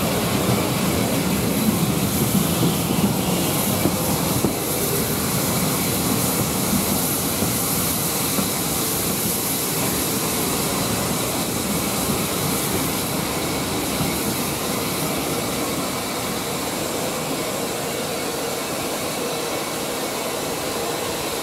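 Steam-hauled train moving slowly along a station platform, heard from an open carriage window: a steady rush of wheel noise and wind with hiss, easing gradually toward the end, with a couple of light knocks in the first few seconds.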